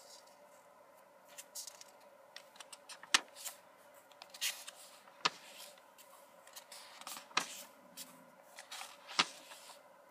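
Paper pages of a lined notebook being handled and turned: light rustling and crackling, with four sharp paper snaps about two seconds apart.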